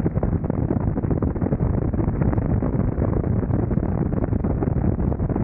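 Steady, heavy wind buffeting on the camera microphone of a motorcycle at highway speed, about 60 mph. The Kawasaki Vulcan 900's V-twin engine and tyre noise run underneath it.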